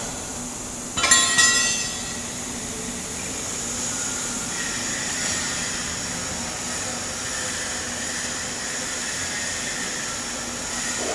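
Stick-welding arc burning an E7018 electrode on a cap pass, making a steady hiss. About a second in there is a sharp metallic clink that rings briefly.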